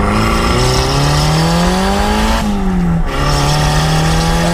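Turbocharged 1.6-litre Mazda Miata four-cylinder pulling hard at full throttle, heard from inside the open cabin. The revs climb steadily in first gear, drop at the shift to second about two and a half seconds in, then climb again.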